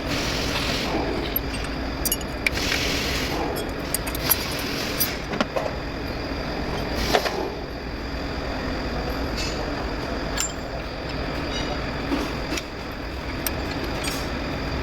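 Scattered metallic clinks and taps of hand tools on a truck engine's alternator and belt tensioner mounting, over a steady low vehicle-like rumble.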